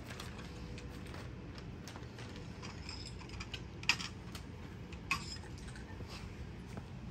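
Kittens playing with small toys on a tile floor: scattered light taps and clicks, with two sharper knocks about four and five seconds in, over a steady low hum.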